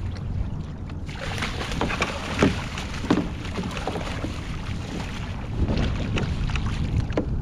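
A hooked fish thrashing and splashing at the surface beside a kayak as it is scooped into a landing net: a run of sharp splashes, the loudest a little over two seconds in, over steady wind noise on the microphone.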